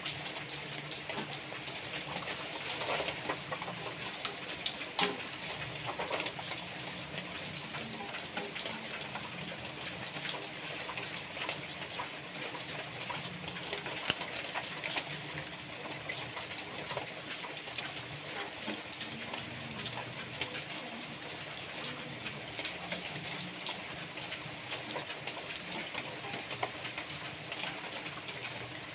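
Heavy rain falling steadily, an even hiss, with a few sharp taps or knocks about 4, 5 and 14 seconds in.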